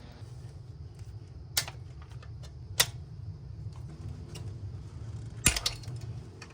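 Metal tools and small engine parts clinking and clanking, with three sharp clanks, about one and a half, three and five and a half seconds in, and lighter ticks between, over a steady low hum.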